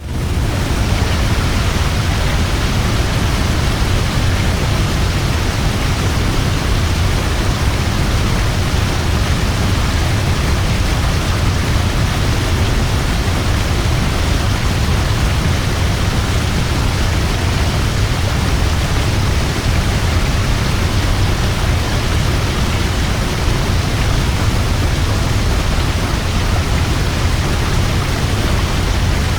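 Large waterfall roaring over a cliff into a river: a steady, dense rush of falling water with a heavy low rumble beneath it.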